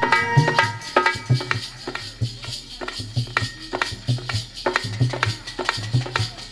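Instrumental break in a Hindi devotional folk song: a hand drum keeps a steady rhythm of low thumps with sharp slaps between them, with no singing.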